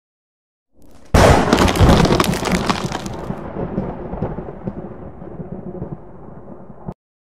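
Thunderclap: a sudden loud crack about a second in, rolling into a low rumble that slowly fades and then cuts off abruptly near the end.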